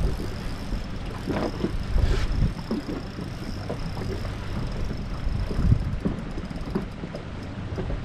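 Small fishing boat under way on the sea, with wind buffeting the microphone in an uneven low rumble and a faint steady high whine.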